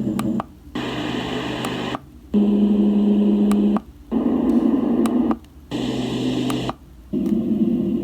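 Unite Stone white noise machine playing its sound settings one after another: about six short stretches of noise, each roughly a second long and each a little different, with brief gaps between them.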